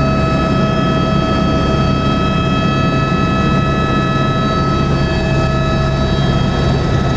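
Airbus AS350 B3 helicopter's single turboshaft engine and rotors heard from inside the cabin during climb-out after takeoff: a loud, steady low drone with an even, high turbine whine over it.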